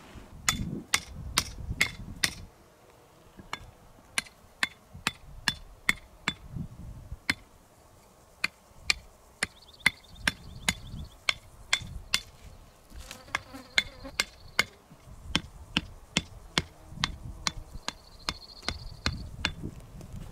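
A long run of sharp knocks, about two a second and quicker in the first couple of seconds, like something being hammered. A faint insect buzz comes and goes behind them.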